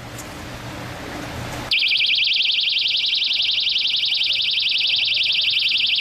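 Personal safety alarm set off by pulling out its safety pin: about two seconds in, it starts a loud, high-pitched shriek that warbles very rapidly and holds steady.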